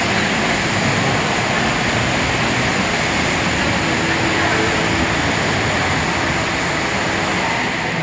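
Steady, echoing wash of noise in an indoor swimming-pool hall, from swimmers splashing through the water during a relay.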